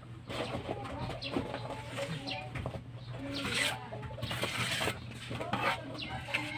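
Chickens clucking and small birds chirping, over intermittent scrapes and knocks of masonry work on a cement wall.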